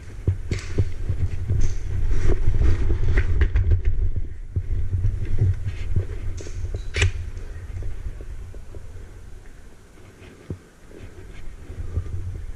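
Irregular dull thumping and rustling from movement against a helmet-mounted camera, with a few sharp clicks. The thumping is heaviest in the first half and eases off toward the end.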